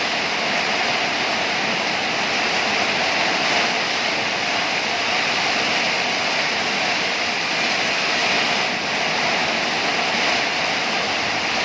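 Heavy rain pouring down in strong wind, a dense, steady hiss with no letup.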